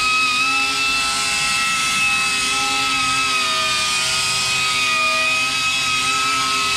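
Handheld power polisher with a polishing pad running steadily at high speed with a constant whine, buffing an aluminum wheel with metal polish.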